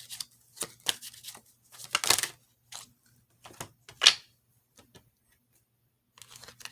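Tarot cards being shuffled and handled: a series of short, sharp papery strokes, the loudest about two and four seconds in, then a pause.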